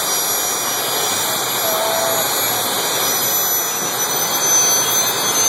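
Jet dragster's jet engine running, a steady, loud rush of noise.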